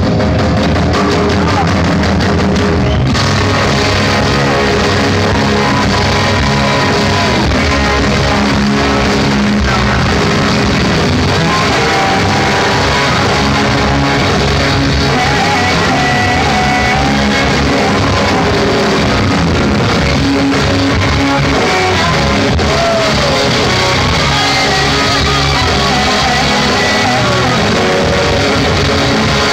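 Live rock band with electric guitar and horns playing loudly, with a lead vocalist singing over it, heard from within the crowd.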